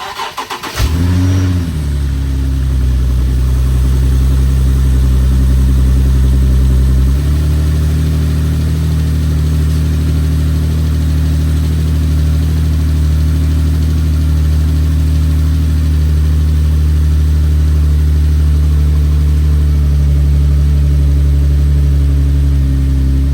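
Infiniti G37's 3.7-litre VQ37VHR V6 cranking briefly and catching, flaring up in revs and then settling into a steady fast idle. This is its first start after a Stillen Gen 3 long-tube intake install. The idle steps down slightly about seven seconds in.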